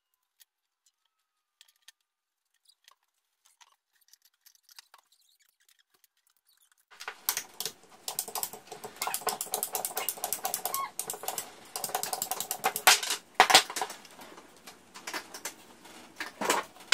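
Ratcheting PVC pipe cutter clicking rapidly as it is squeezed through plastic pipe, starting about seven seconds in after a few faint handling clicks, with several louder snaps near the end.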